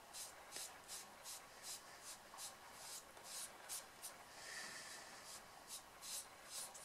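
Faint, rhythmic scratchy strokes of a pastel applicator tool rubbing pan pastel into textured pastel paper, about three strokes a second.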